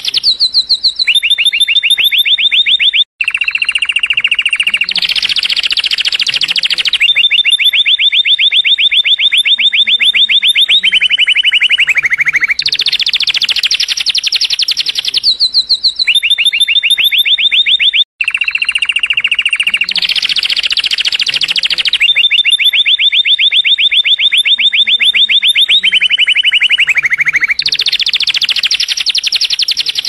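Domestic canary singing a continuous song of rapid trills, about ten notes a second, each trill held for a few seconds before switching to another at a higher or lower pitch. The song cuts out for an instant twice.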